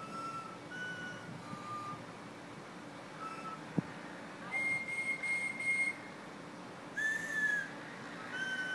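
People whistling a Christmas tune, a melody of short held notes. Partway through come four repeated higher notes, then a louder note that bends down near the end. A single sharp click sounds just before the repeated notes.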